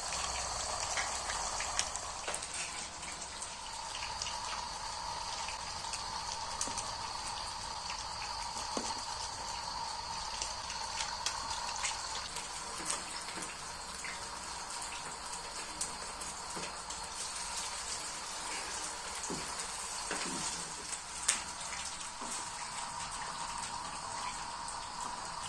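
Cotlet patties frying in hot oil: a steady sizzle with scattered small pops, and one sharper click about 21 seconds in.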